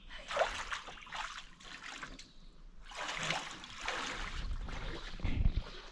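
Water lapping and splashing in irregular surges, with a low bump near the end.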